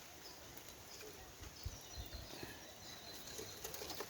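Faint outdoor background with small birds chirping, short high calls repeating every half second or so, and a couple of soft low knocks.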